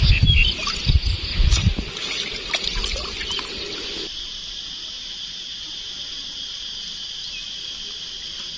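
A steady, high insect chorus drones at two pitches throughout. In the first two seconds there are low thumps and water sounds as a collapsible shrimp trap on a bamboo pole is lowered into a pond.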